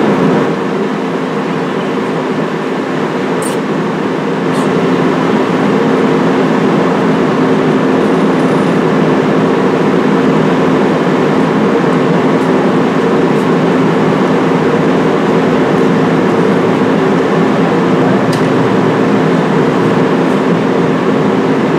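NJ Transit diesel-hauled commuter train standing at the platform, its locomotive and coach equipment giving a loud, steady hum with a few faint clicks.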